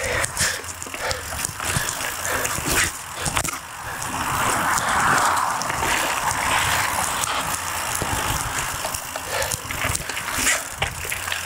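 Polygon T7 full-suspension mountain bike rolling fast down a dirt trail: tyre noise on dirt and leaves, with scattered clicks and rattles of the bike over bumps. Wind rushes over the microphone, swelling midway through.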